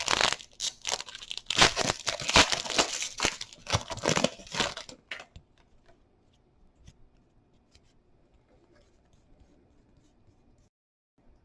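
A trading-card pack's wrapper being torn open and crinkled for about five seconds, then only faint light ticks of cards being handled.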